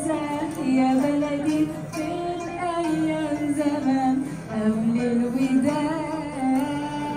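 A group of young voices singing one melody together, with a guitar accompanying.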